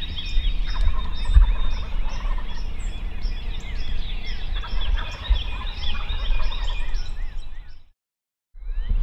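Wild turkey gobblers gobbling from the roost at dawn, over a chorus of songbird chirps and trills, with a low rumble underneath. The sound fades out to silence near the end.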